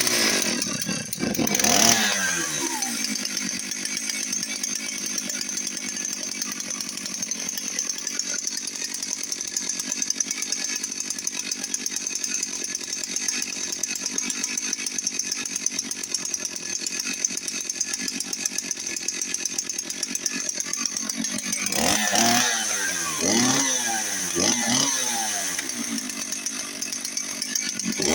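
Dolmar 6400 two-stroke chainsaw running. It revs briefly and drops back at the start, idles steadily for most of the time, then is blipped up and back down four or so times near the end.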